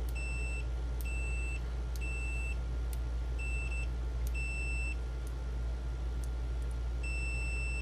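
Owon B35T multimeter's continuity buzzer beeping six times, in short, irregular beeps of one high tone, as the test leads make and break contact. Each beep starts with a faint click. A steady low hum runs underneath.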